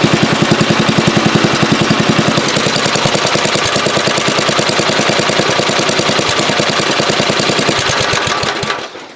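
Lawn tractor's small gasoline engine idling with an even firing pulse, then switched off near the end and running down to a stop.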